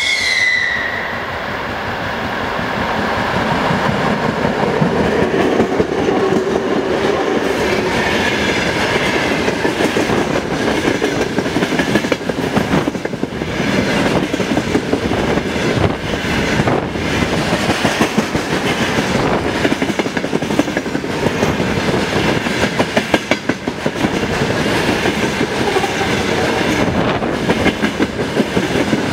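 A 2TE116 twin-section diesel locomotive's horn blast ends about a second in. Then the locomotive and a long freight train of covered hopper and tank wagons roll past close by, with a steady rumble and wheels clacking over the rail joints.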